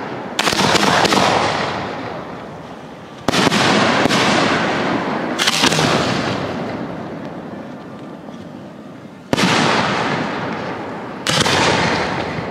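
Display-grade aerial firework shells bursting overhead: five sharp booms at uneven intervals, each trailing off slowly in a long rolling echo.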